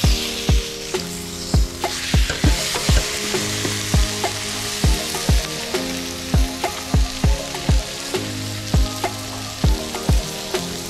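Tomahawk steak sizzling on a ridged grill pan over charcoal, the sizzle growing louder about two seconds in. Background music plays over it with a steady beat of about two thumps a second.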